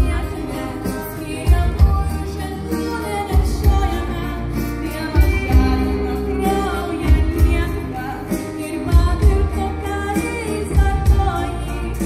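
Live rock band playing a song, with singers over electric guitars, bass and drums; strong low bass hits come round in a repeating pattern.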